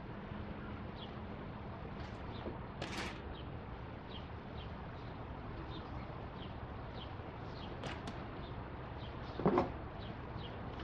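Faint handling noises as the retaining clip is worked back into the engine coolant temperature sensor housing by hand: a short scrape about three seconds in and a louder short knock near the end, over a low steady background.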